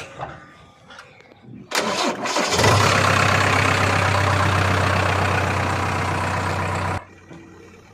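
A heavy diesel engine cranks and catches about two seconds in, then runs with a loud, steady low drone until it cuts off suddenly near the end.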